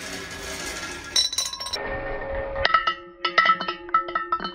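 Two small balls rolling along a steel rail, then a sharp clink about a second in. From about two and a half seconds in, a quick run of clinks with ringing tones as the balls land and bounce inside a glass vase.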